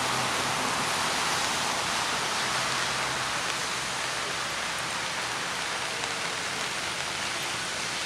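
Steady rain falling, an even hiss throughout.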